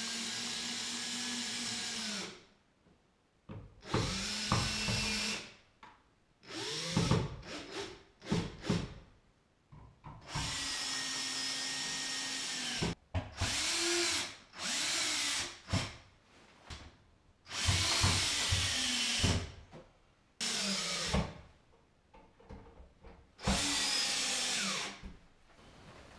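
Cordless drill running in about eight short bursts of one to three seconds each, driving screws, with clicks and handling noises in the gaps between.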